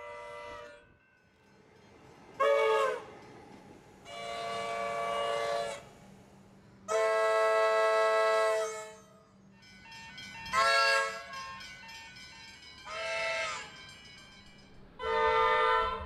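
Comeng electric suburban trains' RVB three-chime air horns sounding a series of blasts, one after another: short toots of about half a second and longer blasts of around two seconds, the loudest held from about seven to nine seconds in. Between blasts only low rail and ambient noise.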